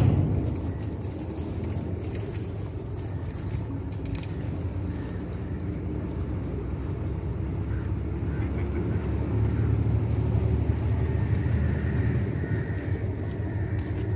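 Insects buzzing steadily at a high pitch over a low, steady rumble.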